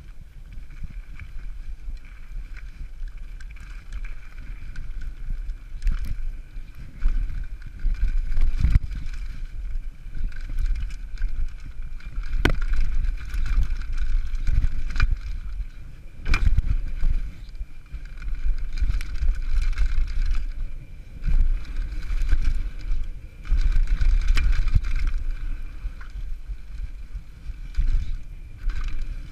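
Downhill mountain bike ridden fast over a rough dirt and leaf-covered trail: wind buffeting the microphone and a steady rumble from the bike over the ground, with sharp knocks and clatters from the bike over bumps a few times.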